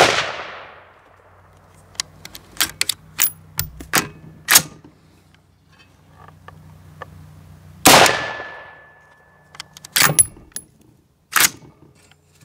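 An AR-15 pistol fires two single shots, one at the start and one about eight seconds in. After each shot comes a run of sharp metallic clacks as the action is worked by hand to pull the spent case and chamber another round, because the new bolt carrier group does not cycle on firing.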